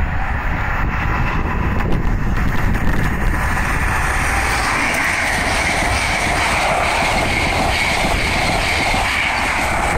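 Train passing at speed on the East Coast Main Line: a steady rush of wheel and rail noise that grows louder and brighter from about four seconds in, with wind buffeting the microphone.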